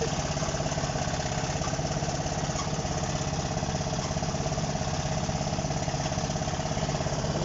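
Large diesel engine of heavy equipment running steadily at a low, even speed with a fast regular throb.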